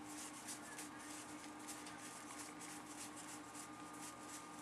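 Faint, soft rustling of trading cards being handled and slid over one another, in short irregular strokes, over a steady low electrical hum.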